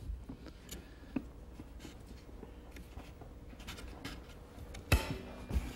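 Faint scraping and handling of a steel locking C-clamp being fitted over a glued wooden joint, with a few small clicks and one sharper click a little before the end.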